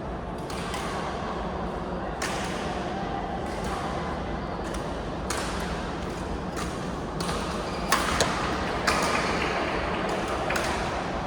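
Indoor game sounds in a large hall: a steady mix of voices with several sharp knocks, the loudest about eight and nine seconds in.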